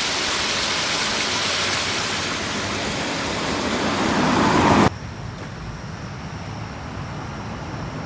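Steady outdoor noise with no tone in it, growing louder over the first five seconds and then cutting off abruptly to a much fainter hiss.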